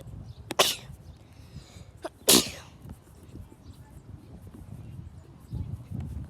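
A person sneezing twice, about a second and a half apart; the second sneeze is the louder.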